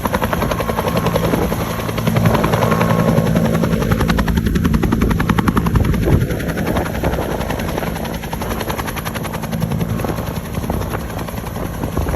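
Helicopter rotor beating rapidly and steadily, with its engine humming underneath.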